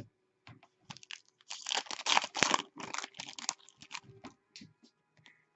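Crinkling and tearing of a foil hockey-card pack wrapper being opened by hand, densest for about two seconds in the middle, with scattered small clicks of card handling either side.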